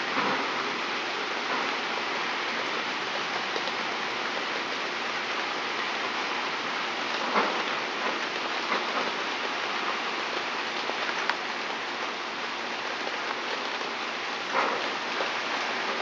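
Steady rain falling and pattering on surfaces, with a few sharper drops landing now and then.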